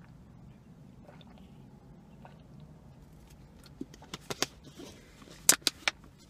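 Low steady hum inside a car, then from about four seconds in a run of sharp clicks and taps from a plastic water bottle being handled after a drink, loudest in a quick cluster near the end.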